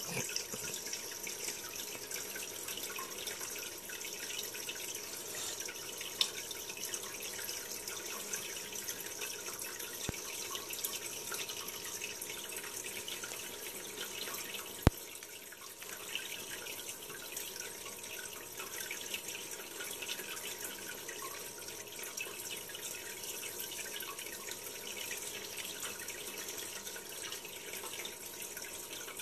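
Steady water trickling and dripping sound of an aquarium video playing through a laptop's speakers. A couple of sharp taps cut through it, the loudest about fifteen seconds in, as a kitten paws at the screen.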